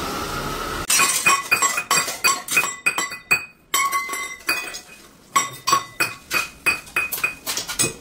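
Stainless-steel pots, plates and bowls clinking and clattering as they are handled and knocked together: a fast, irregular run of ringing metal strikes with a brief lull about halfway. This starts about a second in, after a moment of steady scooter and street noise.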